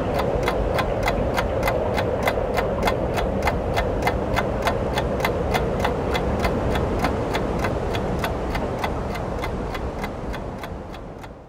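Film projector running: a steady whir with an even clatter of about three and a half clicks a second. It cuts off abruptly near the end.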